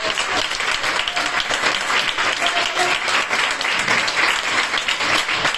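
Small audience applauding steadily, a dense even clapping with a few faint voices mixed in.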